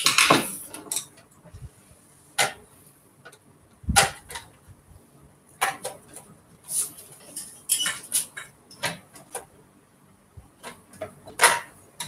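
Irregular clicks, knocks and clatter from a Singer sewing machine and its parts being handled during repair, with louder knocks at the very start, about four seconds in and near the end.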